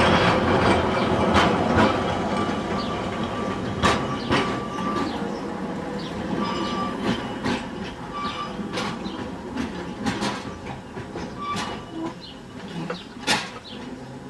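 Narrow-gauge double-deck electric tram running close by and then away, its rumble fading as it goes. Its wheels give irregular sharp clicks over rail joints and points, with a few brief squeals on the curve.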